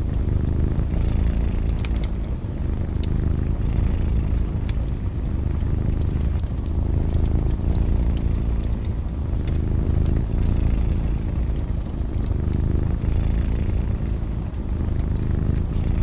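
Cat purring close up, a steady low rumble that swells and fades every couple of seconds, over a wood fire crackling with scattered sharp pops.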